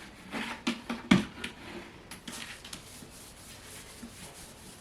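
Craft supplies being handled: several light knocks and clicks, the loudest about a second in, then faint rubbing and rustling.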